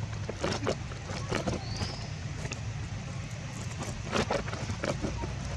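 Outdoor background with a steady low rumble and scattered short clicks and knocks, the strongest about four seconds in, plus a brief high chirp near two seconds.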